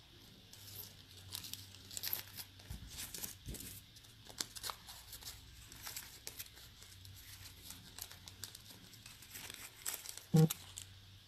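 Rustling and crinkling as small items are handled, with scattered light clicks, and one short louder knock near the end.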